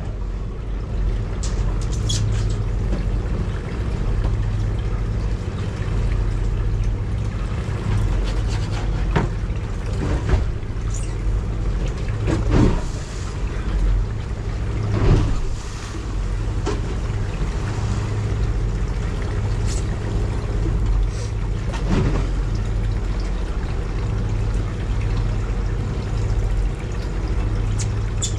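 A boat's engine idling with a steady low hum, while water sloshes along the hull and slaps against it a few times.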